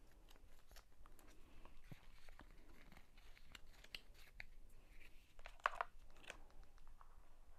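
White paper and card packaging from an iPhone box being handled: faint crinkles and small clicks, with louder rustling about five and a half seconds in.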